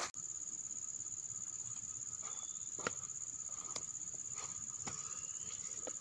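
Steady high-pitched insect chorus, a cricket-like trill with a rapid even pulse, with a few faint ticks about three and four seconds in.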